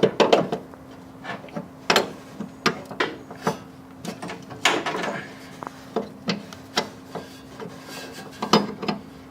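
Irregular clinks, knocks and scrapes of hand tools and metal parts being handled during mechanical work, over a faint steady hum.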